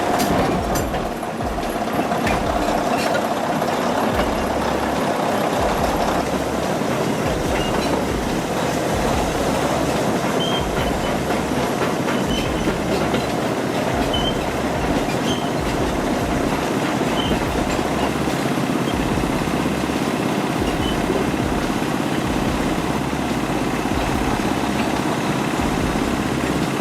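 Caterpillar D9G bulldozer working: its diesel engine running under load with the steel tracks clanking, a steady heavy mechanical din with an uneven low rumble.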